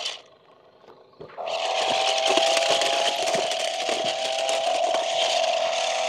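A toy RC stunt car's electric drive motors whine at a steady pitch as its wheels scrabble and crunch over loose gravel. The sound starts about a second and a half in, after a short quiet pause.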